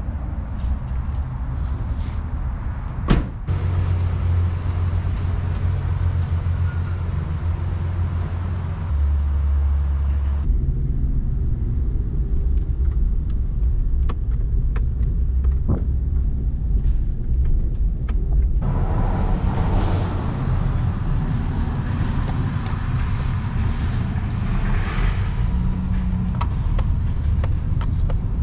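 A pickup truck's door thumps shut about three seconds in, then the truck's engine and tyre noise is heard from inside the cab as it drives, a steady low hum that changes abruptly several times.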